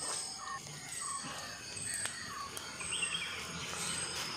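Birds and insects calling, with a high chirp repeating over and over, and a few faint sharp crackles from a fire of burning dry leaves.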